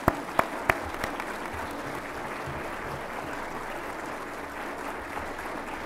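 Audience applauding: a few loud, sharp claps stand out in the first second, then steady applause.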